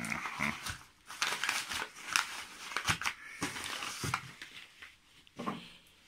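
Plastic mailing bag rustling and crinkling in irregular bursts as a package is unwrapped and its contents pulled out.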